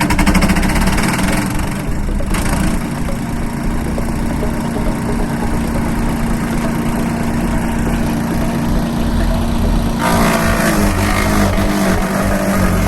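DR Premier 300 chipper-shredder's gas engine running steadily at speed. About ten seconds in, a noisier, higher-pitched sound joins the engine.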